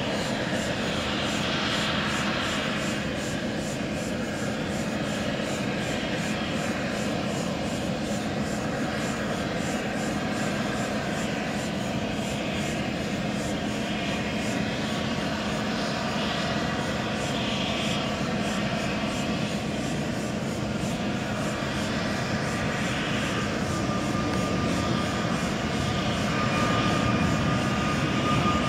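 Airbus A320neo's CFM LEAP-1A turbofans at takeoff thrust during the takeoff roll, heard from a distance as a steady jet rumble with a low hum. It grows louder near the end as the aircraft approaches, and a high fan whine comes in.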